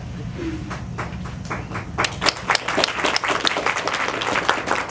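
Audience applauding: a few scattered claps that fill in to full applause about two seconds in.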